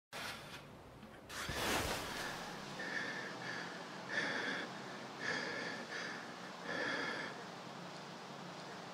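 A man breathing heavily: a series of about six audible breaths, roughly one a second.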